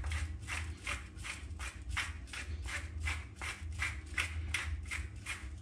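Hand pepper mill grinding black peppercorns: a short grinding burst with each twist, about three a second, kept up steadily.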